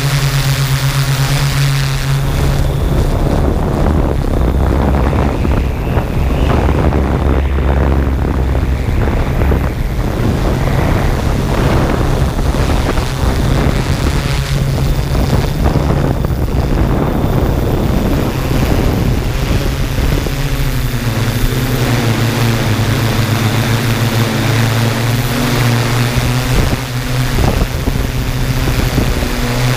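Yuneec Typhoon G camera drone in flight, its propellers and motors picked up by the onboard camera as a loud, steady hum with wind buffeting the microphone. The hum becomes clearer and more tonal about two-thirds of the way through.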